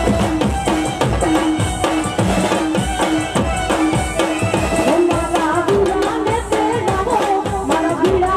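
Live Gujarati garba folk music played loud through a PA: a fast, steady drum beat under a keyboard melody, with singing that comes forward in the second half.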